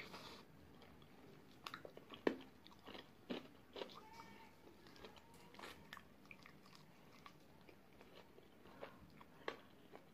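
Close-up eating sounds of a person biting into and chewing sauce-coated fried chicken wings: scattered sharp mouth clicks and bites over quiet chewing, the loudest bite a little over two seconds in.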